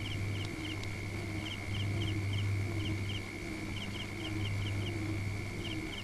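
Night ambience of insects: a steady high trill with short chirps in pairs repeating over it, and a low hum underneath that swells and fades.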